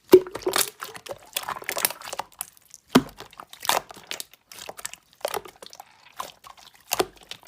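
Slime being pressed and stretched by hand, making irregular sticky clicks, crackles and wet pops.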